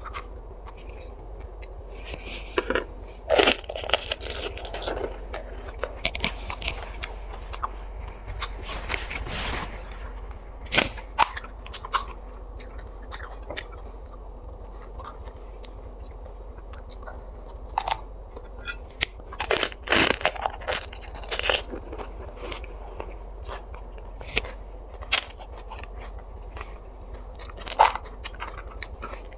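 Pani puri (fuchka) being eaten fast: crisp hollow fried shells crunching irregularly as they are bitten, with chewing in between.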